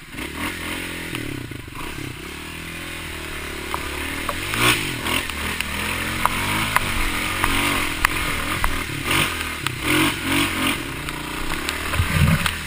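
Dirt bike engine revving up and down as the bike rides through shallow floodwater on a trail, with bursts of splashing and clatter. A heavy low thump comes near the end.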